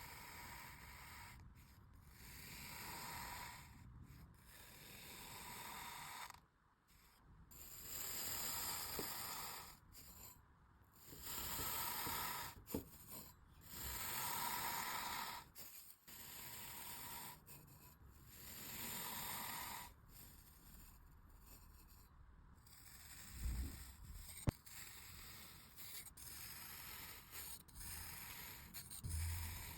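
Kinetic sand being cut and sliced, a soft hissing scrape repeated in strokes of a second or two, with one sharp click late on.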